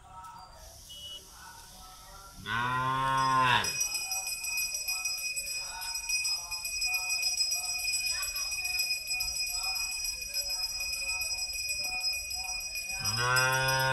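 A cow moos twice: a long, low call that rises and falls about two and a half seconds in, and another near the end. Between them a steady, high, bell-like ringing tone holds, over faint distant voices.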